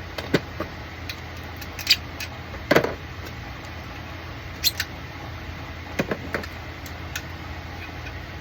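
Scattered small clicks and snaps of 3D-printed plastic parts being handled and worked by hand, over a steady low hum.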